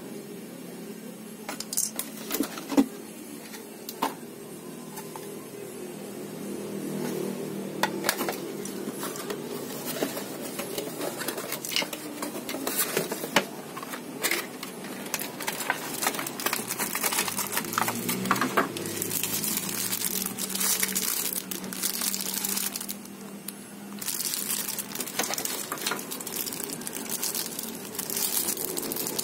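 Clear plastic packaging bags crinkling and rustling as they are handled, with a few sharp clicks of hard plastic parts in the first few seconds. The crinkling grows denser and louder in the second half.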